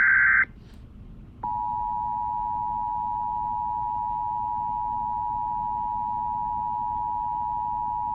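The end of a loud burst of Emergency Alert System digital header data tones, then about a second and a half in a steady two-note Emergency Alert System attention signal starts and holds without change. The attention signal announces an incoming alert, here a severe thunderstorm warning.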